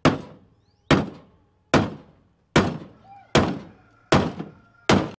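Seven evenly spaced hammer blows, a little under a second apart, each with a short ringing tail. They are driving new universal-joint bearing caps into a driveshaft yoke without a press.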